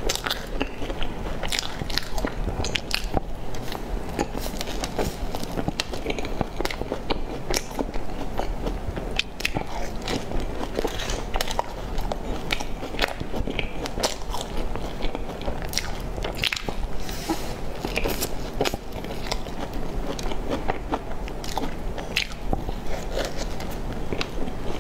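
Close-miked chewing and biting of crumb-topped buns, the crisp crust crackling in many short crunches one after another.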